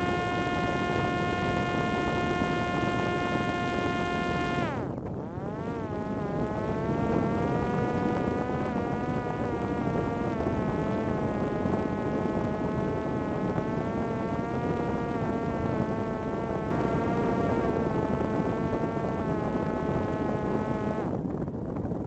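Parrot Disco fixed-wing drone's electric motor and pusher propeller whining in flight, with wind rushing over the airframe. The whine holds a steady pitch, slows sharply about five seconds in, then climbs back and wavers. It stops about a second before the end, leaving wind noise.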